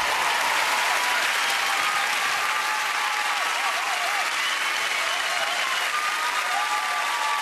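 A studio audience applauding, with cheers and whoops over the clapping.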